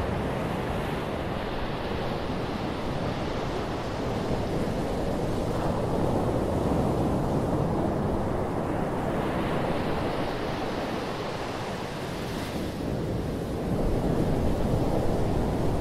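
Small waves breaking and washing up over a sandy beach: a continuous surf wash that swells and eases, growing louder near the end as a wave line breaks.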